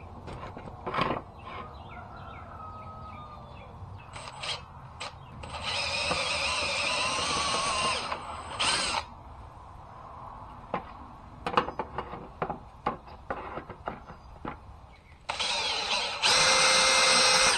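Power drill running in a few short runs of about two seconds each, drilling holes, with scattered clicks and knocks between the runs.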